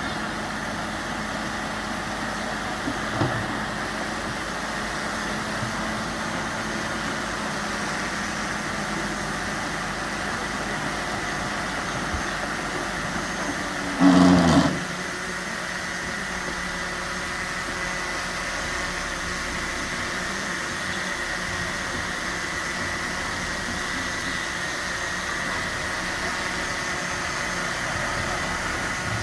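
Bulldozer running steadily while pushing soil, a constant machine drone with a steady whine, with one short louder low-pitched burst about fourteen seconds in.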